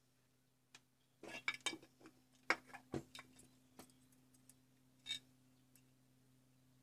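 Small clicks and clinks of handling: metal multimeter probe tips and a plastic charger housing knocking and scraping together on a workbench. They are densest in the second and third seconds, with one more clink about five seconds in, over a faint steady low hum.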